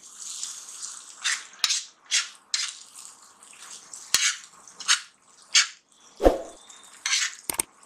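Metal spatula stirring and scraping a thick onion and poppy-seed mixture across an iron tawa in repeated short strokes. A few sharp clicks and a heavier knock about six seconds in are the spatula striking the pan.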